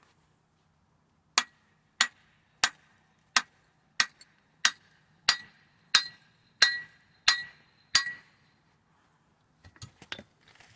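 Hammer striking steel eleven times in a steady rhythm, about one and a half blows a second, each blow ringing, to knock a stuck part out of a truck's rear leaf-spring suspension. A few light metal clinks follow near the end.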